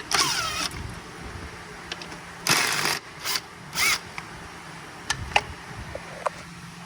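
Hands working on engine-bay parts and hoses: four or five short scraping, rubbing noises, a couple with a squeak, then a few light clicks near the end.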